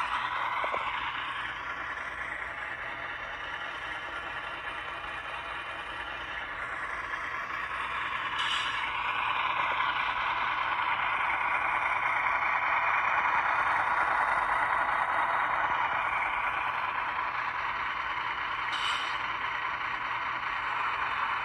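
HO scale GE ET44AC model locomotive running along the track, its wheels and drive making a steady scraping rattle that grows louder toward the middle and then eases off. Two short high hisses come through, one about eight seconds in and one near the end.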